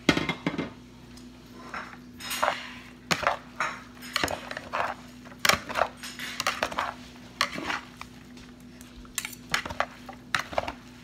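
Chopsticks and a spoon tossing shredded salad in a plastic bowl: irregular clicks and knocks of the utensils against the bowl and each other, over a faint steady hum.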